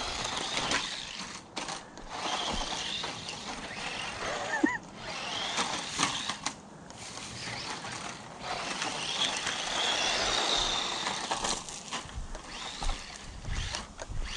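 DEERC 9300 1:18-scale electric RC truck driving: its small motor and gears whining, the pitch rising and falling with the throttle, over a rough noise of tyres on the ground.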